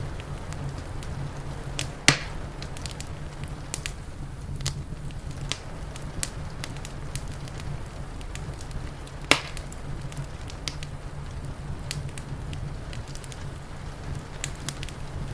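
Wood fire crackling in a fireplace: scattered small snaps and two sharp louder pops, about two seconds in and about nine seconds in, over a steady low rumble.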